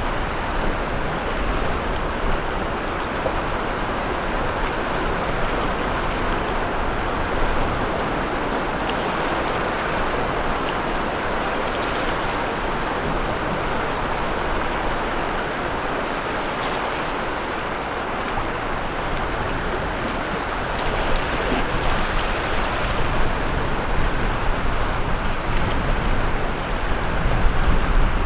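Ocean surf washing onto the beach: a continuous rush of breaking waves with a low wind rumble underneath. The surf swells louder in the last several seconds.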